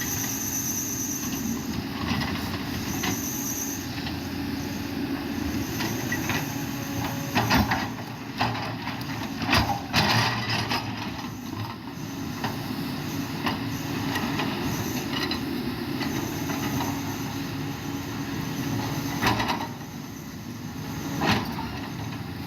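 Machinery running steadily, with a high squeal that comes and goes and a few sharp knocks.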